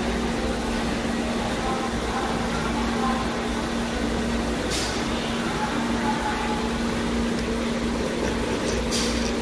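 Restaurant room tone: a steady mechanical hum with a low droning tone, typical of ventilation or kitchen equipment, under faint background voices. Two brief hissing swishes come about five seconds in and near the end.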